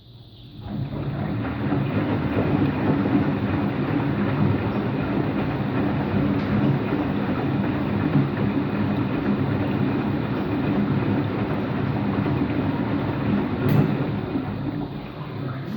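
Empty washing machine's drum running on its rinse-and-spin cycle. It starts up about half a second in and keeps up a loud, steady rumble from bad bearings, which the owner suspects are the drum bearings, the motor bearings or both. A single sharp click sounds near the end.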